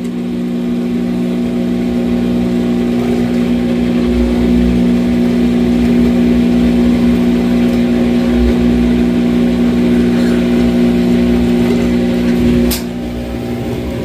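Whirlpool top-load washer's drain pump humming steadily as it pumps out the wash water. A short sharp click comes near the end.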